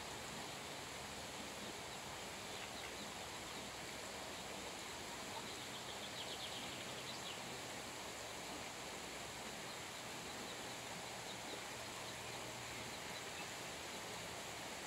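Steady outdoor background hiss with faint, high-pitched peeping of ducklings now and then, in a quick run of peeps about six to seven seconds in.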